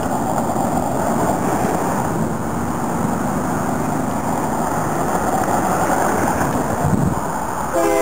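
Steady rushing noise of road traffic passing on the highway alongside, with a distant diesel locomotive's rumble. Just before the end, the approaching Ferromex locomotive's air horn starts sounding, a chord of several notes.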